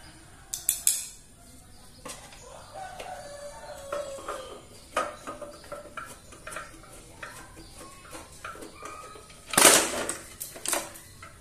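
Metal knocks and clicks as the indicator head of a digital platform scale is worked loose from its steel pole bracket, with a loud clatter about ten seconds in as it is lifted off. A rooster crows in the background.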